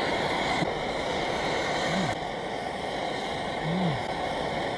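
Steady hissing roar of a gas flame, such as a camp stove burner, running without a break.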